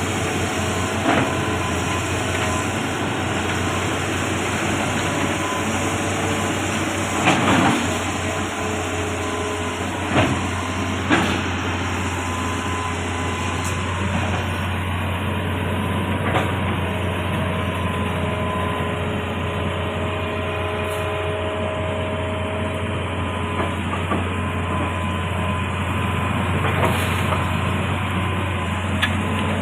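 Amphibious excavator's diesel engine running steadily, with a few sharp knocks and clanks scattered through.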